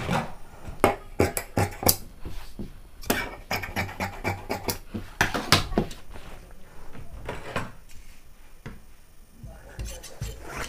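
Cloth and tools being handled on a tailor's cutting table: a scattering of light clicks and taps, in small clusters, as folded fabric is lined up and worked.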